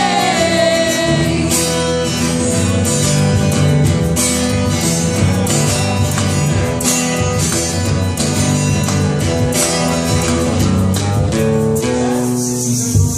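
Acoustic guitar strummed in a steady, lively rhythm, with a woman singing near the start.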